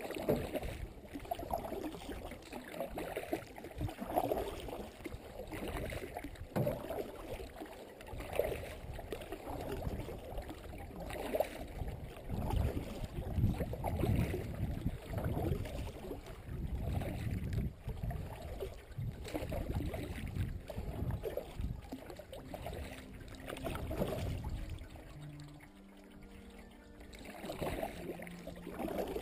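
Canoe being paddled: a paddle dipping and pulling through calm lake water in repeated strokes, with water gurgling and trickling along the hull.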